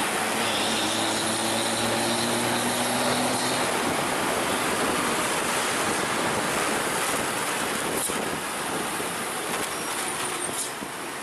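Vehicle on the move: steady engine and road noise, with a faint steady whine in the first few seconds.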